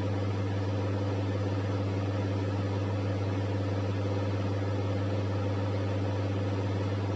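Steady low electrical hum with an even hiss, unchanging in level throughout: background hum of the room's equipment.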